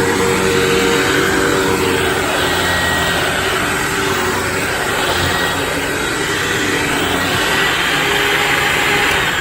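Hoover WindTunnel Preferred upright vacuum cleaner running steadily: an even rush of air over a steady motor hum.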